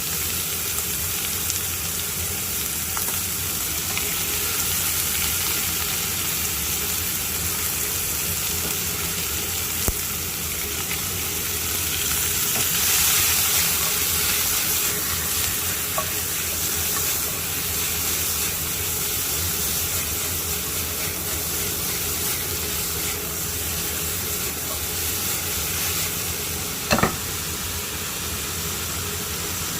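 Pork belly with onion and green onion sizzling steadily in a hot frying pan, with one short sharp knock near the end.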